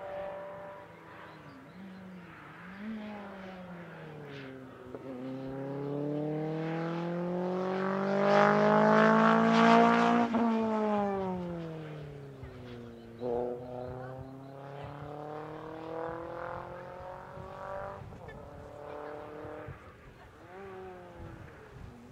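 Rally car engine at full throttle, climbing in pitch and growing loud as the car approaches, loudest about ten seconds in as it passes. The pitch then drops as it draws away, with sharp pitch changes from gear shifts.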